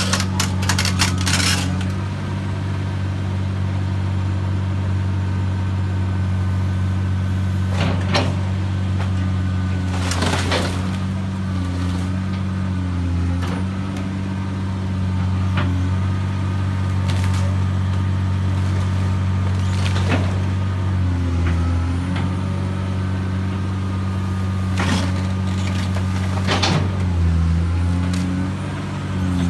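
Caterpillar hydraulic excavator's diesel engine running steadily under load, its pitch dipping a few times as the arm works, while the bucket tears into a house roof with scattered sharp cracks and clatters of breaking roofing and timber.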